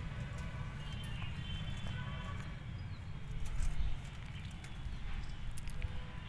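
Outdoor ambience: a steady low rumble with faint, higher-pitched sounds in the distance and a few light clicks.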